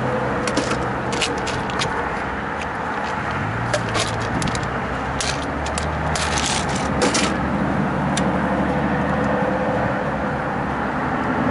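Small clicks and scrapes of hands handling wiring and tools at a condenser fan motor, thick in the first seven seconds and then dying away, over a steady low mechanical hum with a few held tones.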